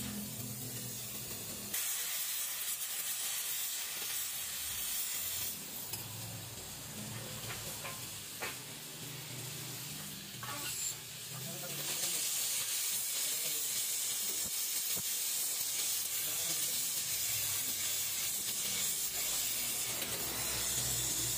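Gas welding torch flame hissing steadily while aluminium is welded, with a few faint clicks in the middle; the hiss gets louder about twelve seconds in.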